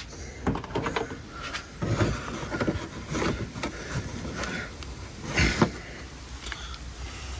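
Irregular knocks, clicks and rustling from handling car interior trim and the rubber door seal, with one louder knock about five and a half seconds in.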